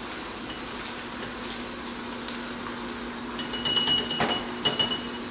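Chicken breasts sizzling steadily in an electric combination grill–panini press, under a low steady hum. A light clink of a spoon against a glass jar about four seconds in.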